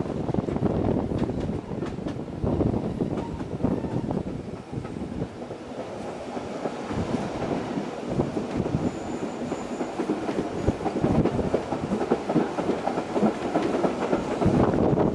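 Narrow-gauge Bernina Railway train running on the track, heard from an open carriage window: a steady rumble of wheels and carriages with scattered clicks.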